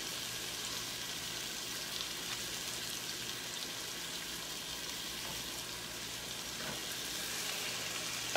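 Chicken thighs sizzling steadily as they sear in butter and olive oil in a skillet.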